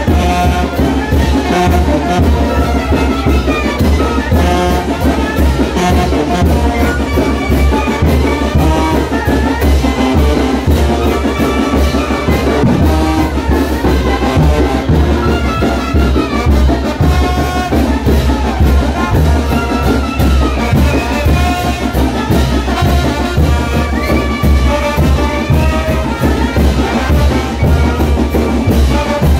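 Brass band playing a son de chinelo, the dance tune for the chinelos' hopping, with trumpets and trombones over a steady, pulsing low beat.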